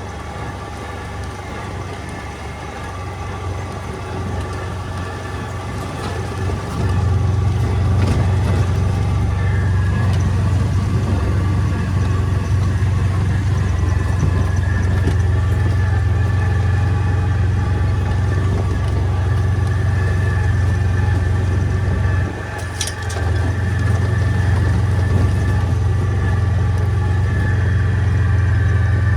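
Vehicle engine running steadily with a deep hum. It gets louder about seven seconds in and eases off briefly about twenty-two seconds in before picking back up.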